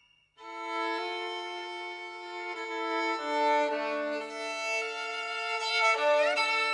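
Slow violin music with long held notes, starting after a brief silence, with a quick upward slide near the end.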